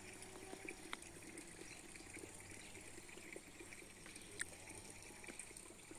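Faint outdoor ambience: a steady high hiss with a couple of soft clicks.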